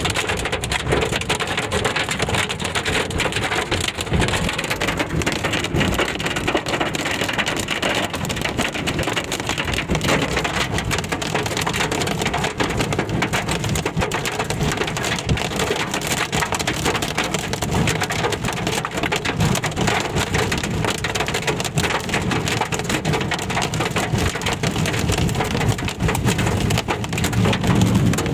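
Hail and rain drumming on a car's roof and windows, heard from inside the cabin: a dense, steady clatter of countless small hits.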